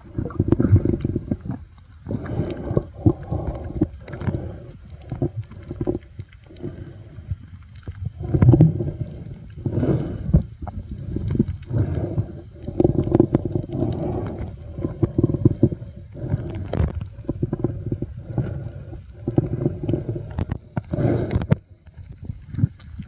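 Muffled underwater sloshing and rumbling picked up by a compact camera sealed in a soft plastic waterproof pouch, rising and falling in irregular surges with a few faint clicks.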